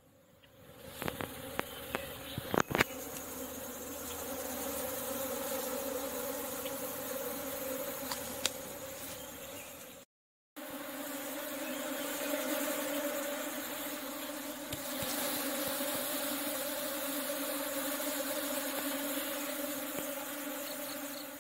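A swarm of honeybees buzzing steadily at close range around a mesh swarm-catching bag. A few sharp knocks sound in the first three seconds.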